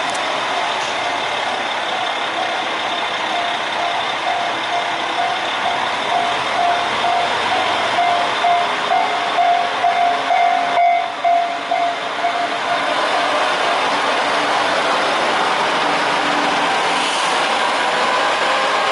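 Diesel railcar engine running under load through an open window as the train pulls away. A steady whine sits over the engine noise until a brief break about eleven seconds in, after which the engine note rises as the train picks up speed.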